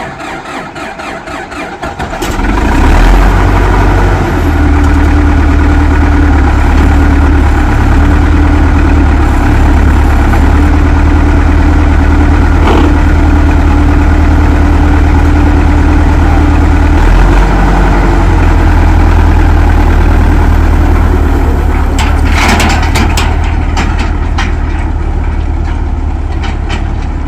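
Tractor engine starting up about two seconds in, then running steadily, with a few clicks about 22 seconds in.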